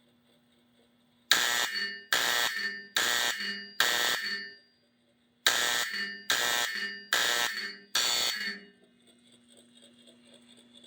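Fire alarm signal from a 1965 Honeywell W247B fire alarm control panel sounding its master code 4-4. There are four ringing strokes, a pause, then four more, each stroke starting sharply and dying away, over a faint steady hum.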